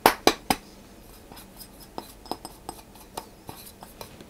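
Flour being tipped and tapped out of a bowl into a mixing bowl, with bowl and utensil knocking together. There are three sharp knocks in the first half-second, then a string of lighter, irregular taps.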